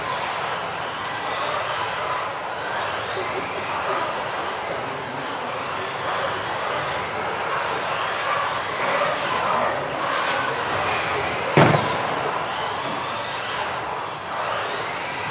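Several electric off-road RC cars of the modified class racing, their motors whining up and down in pitch as they accelerate and brake. One sharp bang about eleven and a half seconds in.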